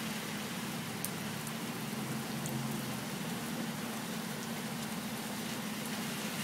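Steady rain falling, with a few faint drop ticks, over a steady low hum of city traffic.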